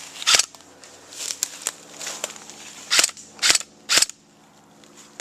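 Airsoft guns firing single shots, each a short sharp crack: one loud shot just after the start, a few fainter shots in the middle, then three loud shots about half a second apart.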